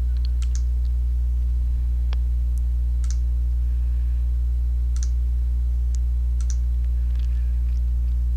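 Computer mouse clicks, about a dozen scattered through, over a steady low electrical hum.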